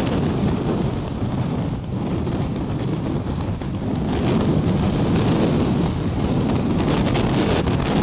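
Strong wind buffeting the microphone in a dense, uneven rumble, over the wash of breaking surf on a rough sea.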